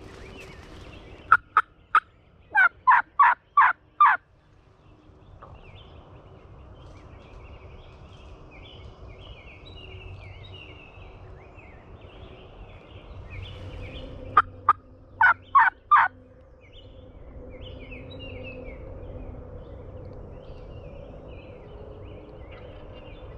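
Two series of loud, sharp hen yelps on a hand-held turkey call, about nine notes and then, some ten seconds later, about six more: a hunter calling to draw a gobbler into answering.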